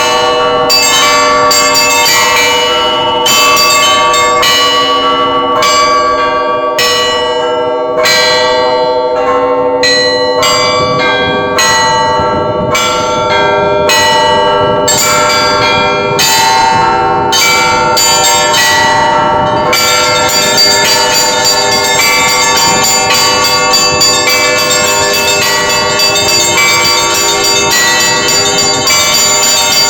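Russian Orthodox monastery church bells ringing the call to the all-night vigil. Separate strikes fall less than a second apart over the lingering hum of the bells. At about 20 seconds in, the ringing turns denser and more continuous, with more high bells sounding.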